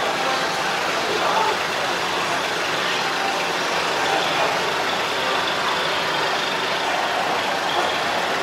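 Steady background din of a machinery exhibition tent: an even mechanical noise with an engine-like hum and faint voices mixed in, without any single event standing out.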